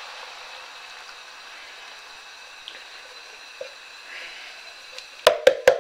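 Canned pineapple pieces and juice pouring from a tin into a pot of vegetables, faint soft wet sounds. Near the end a quick, even run of sharp knocks begins, about five a second.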